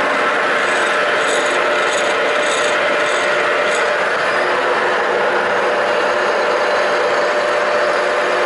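A power tool grinding steadily on steel during fabrication work.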